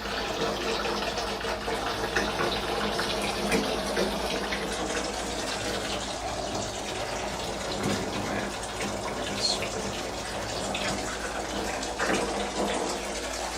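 Water running steadily from a tap into a bathtub as it fills.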